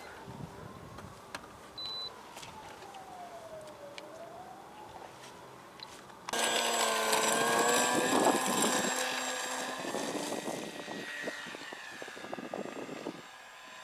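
Radio-controlled model airplane motor and propeller: first faint, its pitch rising and falling as it flies about, then about six seconds in a much louder, close motor and propeller sound comes in suddenly, its pitch wavering, and it eases off near the end.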